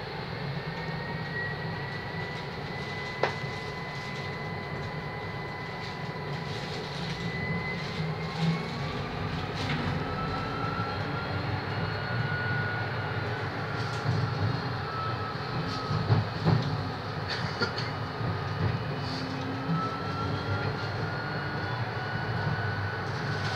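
Zurich tram running along its tracks, heard from inside the car: a steady rumble of wheels on rail with a thin whine that holds steady at first, then rises, dips and rises again. A few sharp clicks and knocks come through, the loudest about two-thirds of the way in.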